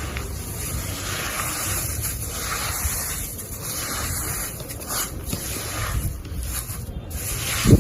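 Crumbly cement chunks being crushed and mixed by hand in water: uneven gritty crunching and scraping, with one low thump near the end.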